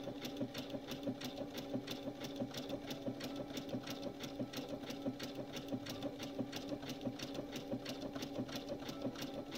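Domestic sewing machine running slowly and steadily while sewing a satin stitch (a dense zigzag). The needle clicks about four times a second over a steady motor hum.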